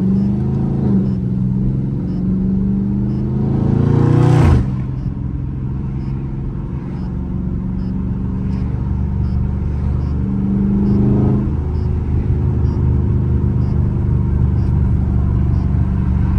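Dodge Charger Scat Pack's 6.4-litre HEMI V8 accelerating, heard from inside the cabin: its pitch climbs and then drops sharply at an upshift about four seconds in, with a short burst of noise at the shift. A second, smaller climb and shift comes about eleven seconds in, after which it cruises steadily.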